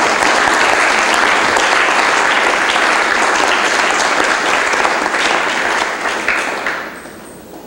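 Audience applauding steadily, dying away about seven seconds in.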